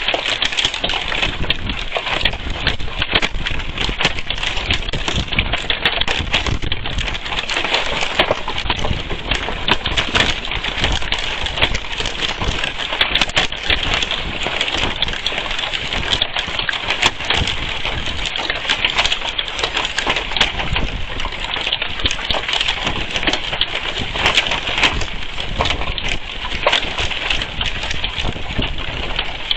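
Hail pelting down hard in a dense, continuous clatter of countless small impacts, mixed with the hiss of heavy rain.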